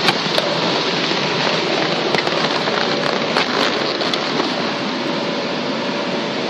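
Steady rushing air noise from the electric blower that keeps the inflatable obstacle course up, with a faint motor hum. Scattered crackles and taps of PVC vinyl rubbing against the camera come on top, mostly in the first few seconds.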